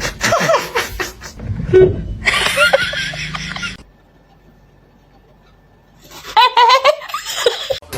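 People laughing, with a pause of about two seconds in the middle before the laughter picks up again.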